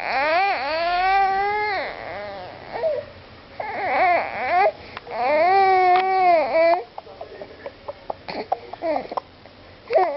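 Young child crying in long fussy wails, three of them, each rising and falling in pitch; after the third wail only a few short soft clicks are heard.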